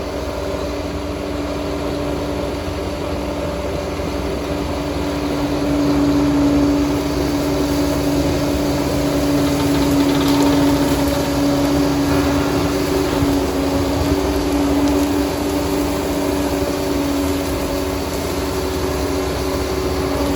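Liebherr PR 746 crawler dozer running, its diesel engine giving a steady hum with a low rumble that grows louder about six seconds in and eases a little near the end.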